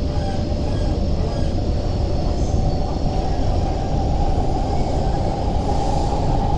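MTR K-stock electric train running between stations, heard from inside the carriage: a steady rumble of wheels on track, with a tone that rises slightly and grows over the last few seconds.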